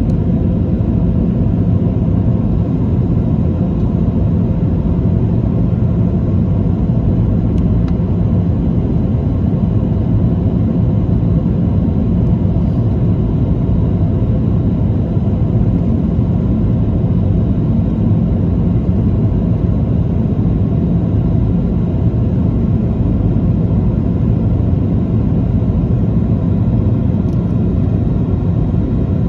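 Steady cabin rumble inside a Boeing 737-800 on approach: the engines and the air rushing past the fuselage make a loud, even, low-pitched roar with faint steady hums.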